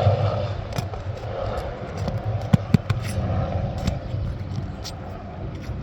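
A pry bar and putty knife scraping and clicking against asphalt roof shingles as staples are worked out, with two sharp clicks about two and a half seconds in. A steady low engine-like drone runs underneath.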